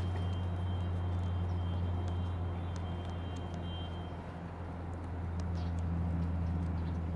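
A steady low mechanical hum, like an idling engine, with a few faint clicks over it.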